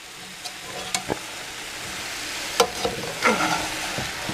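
Vegetables sizzling in a hot cast-iron skillet, the sizzle growing louder. A metal spatula stirs them, scraping and clicking against the pan several times.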